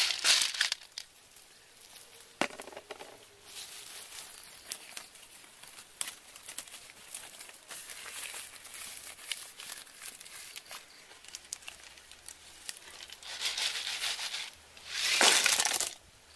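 A wooden spatula scrapes and stirs small shellfish around a metal wok, with the shells rattling against the metal. In between comes the faint crackle of the wood fire. Louder scraping follows near the end.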